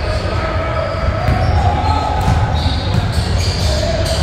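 Echoing ambience of a game in a large gym: a steady low rumble with distant voices and occasional faint knocks.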